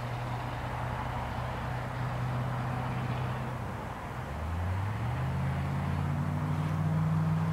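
Low engine hum, steady at first. About four seconds in, a second, louder engine note comes in and slowly rises in pitch.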